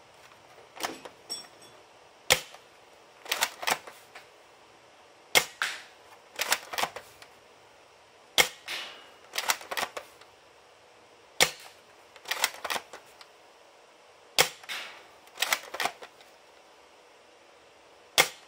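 Gang Jiang M24 bolt-action gel blaster firing single shots through a chronograph: six sharp shots about three seconds apart, each followed about a second later by a quick run of clacks as the bolt is cycled for the next gel.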